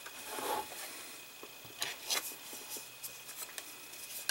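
Plastic model parts being handled and fitted together: light rubbing with a couple of small clicks about two seconds in.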